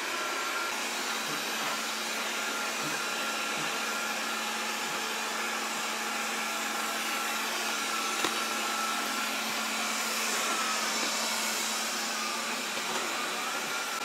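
Proscenic 820S robot vacuum running as it moves across a hardwood floor: the steady whir of its suction fan and brushes with a faint high whine. There is a single click about eight seconds in.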